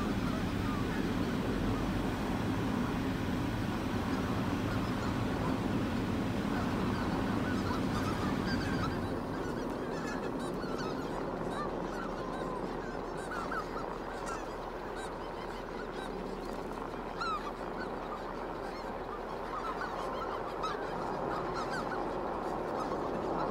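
A large flock of Canada geese honking, many overlapping calls at once. A car engine's low rumble runs underneath for the first nine seconds or so, then drops away.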